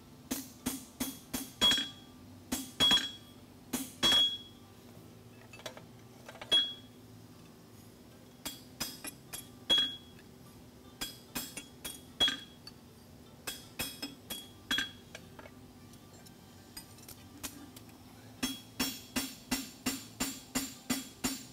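Farrier's hammer striking a head stamp and a pritchel driven into the nail holes of a hot steel horseshoe on an anvil. The single blows each ring briefly. Near the end, after a short lull, comes a quick run of light taps, about four a second.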